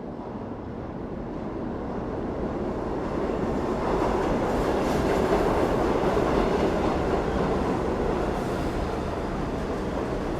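New York City subway train rumbling through the station, growing louder over the first few seconds, peaking about halfway, then easing off slightly.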